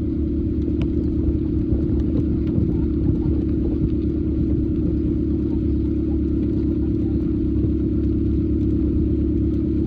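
A motor vehicle running steadily: a continuous low rumble with no rise or fall.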